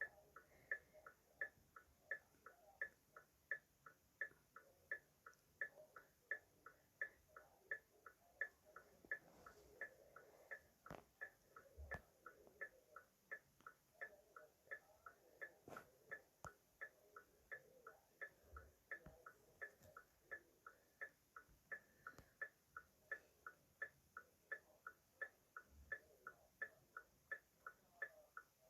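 Car hazard-light flasher ticking steadily, an even click about two times a second.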